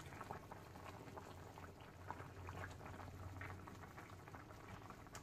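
Chicken and vegetable stew bubbling in a pan at a simmer: faint, irregular small pops of bursting bubbles over a low steady hum.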